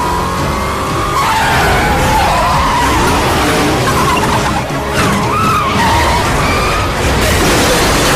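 Dodge Charger engine revving hard, then tyres squealing in long wavering screeches as the car skids, with a crash near the end.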